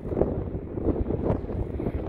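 Wind blowing across the microphone in uneven gusts.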